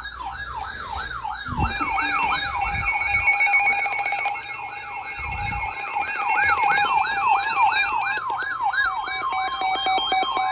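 Electronic siren in a fast yelp, its pitch sweeping up and down about three times a second, with other steady and warbling alarm tones layered over it.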